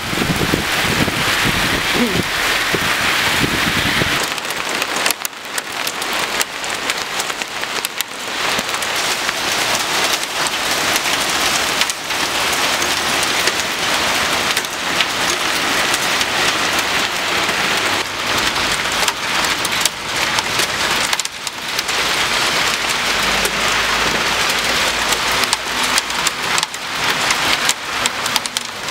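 Hail and heavy rain pelting pavement and a stone window ledge: a loud, dense hiss of countless small impacts. A low rumble sits under it in the first four seconds.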